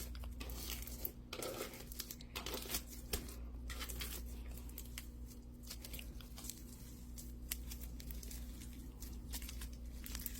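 Thick, glossy gravel slime being squeezed and stretched by hand, giving a steady run of small crackles and clicks as the gravel pieces shift inside it.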